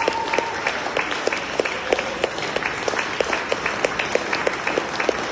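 Audience applauding: a dense mass of hand claps, with single claps close by standing out above it.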